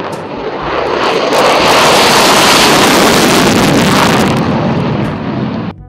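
F-16 fighter jet taking off on afterburner: a loud rushing jet-engine noise that swells over the first second or two, holds, then eases and cuts off suddenly near the end.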